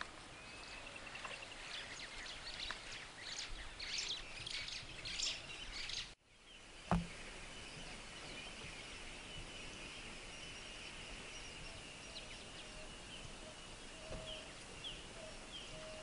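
Wild birds chirping and calling in the African bush, many short high calls overlapping. About six seconds in, the sound drops out briefly and there is a single sharp knock. After that a steady high-pitched buzz or trill carries on, with a few scattered chirps.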